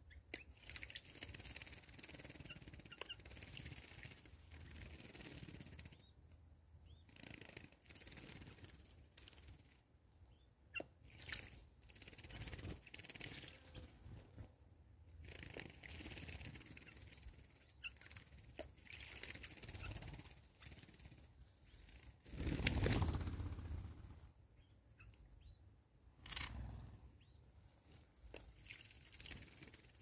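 Birds drinking and bathing at a shallow water bath: faint splashes and wing flutters with a few short high chirps. A louder rushing noise lasting about a second and a half comes about two-thirds through, followed soon after by a sharp click.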